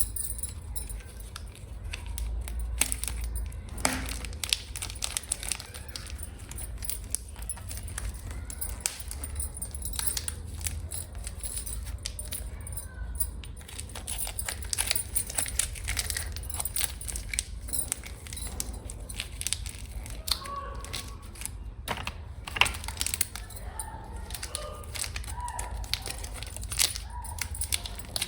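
Long fingernails tapping and scratching close to the microphone: a dense, irregular run of clicks, crinkles and crackles, with a few short pinging tones in the last third.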